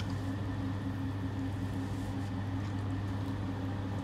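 Electric pottery wheel running with a steady low hum while wet stoneware clay is being centered by hand, with faint wet squishing from the clay and hands.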